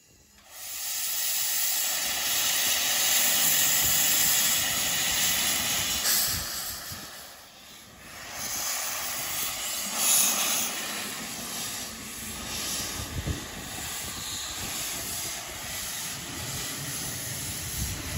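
Narrow-gauge saddle-tank steam locomotive No.1 'Talyllyn' hissing steam: a loud, steady blow-off starting about half a second in, easing for a moment about seven seconds in, then steady hissing from its cylinder drain cocks with a few low thumps.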